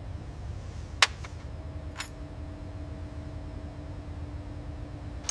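Low steady background hum with a sharp click about a second in and a fainter click about two seconds in, then a faint steady tone from about one and a half seconds on.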